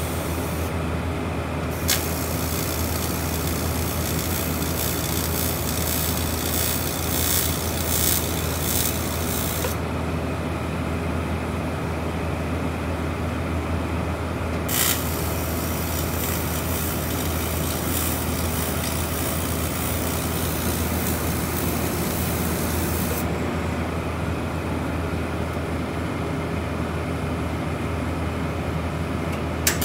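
TIG welding thin aluminium: a hissing arc runs in two long stretches, from about two to ten seconds in and from about fifteen to twenty-three seconds, over the welding machine's steady low hum.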